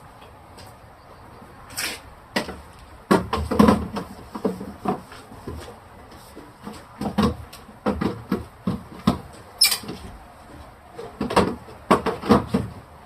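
Irregular knocks and clacks of refrigerator shelves and drawers being handled and set in place, some fifteen sharp strikes in uneven clusters.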